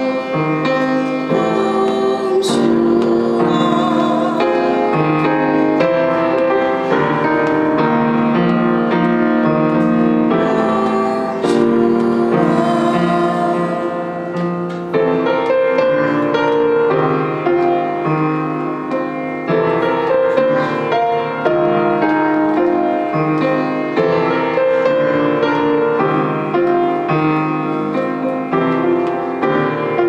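Grand piano playing chords and sustained notes while a woman sings long, held tones at the microphone.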